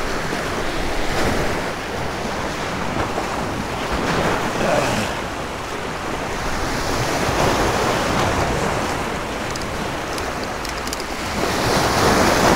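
Surf washing in over the stone blocks of a rock jetty, swelling and easing with each wave. It grows louder near the end as a wave breaks over the rocks.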